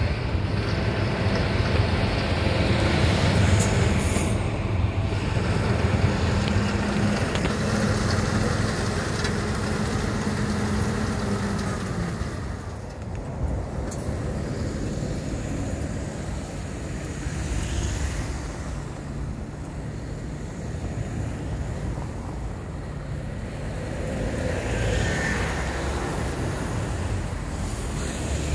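A rotary snowplow's engine runs steadily while cars, a bus and trucks pass close by on the snowy road. Its low drone eases about twelve seconds in.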